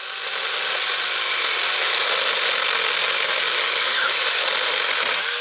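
Alloyman 6-inch 20-volt cordless mini chainsaw running steadily while it cuts through a dead branch, the chain's noise even throughout and fading away right at the end.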